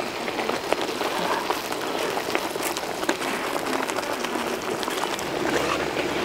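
Thick brown gravy bubbling in a large wok: a steady crackling hiss with many small pops.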